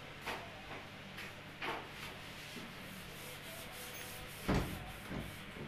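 Rubbing and short knocks from a refrigerator's inside being cleaned, its plastic shelves and freezer compartment handled by hand. The loudest knock comes about four and a half seconds in, over a low steady hum.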